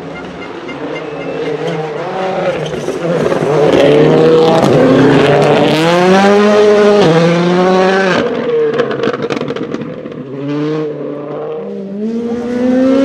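Ford Fiesta WRC rally car's turbocharged four-cylinder engine at full throttle, growing louder as it approaches and revving up through the gears with several upshifts. It eases off about ten seconds in, then accelerates again near the end.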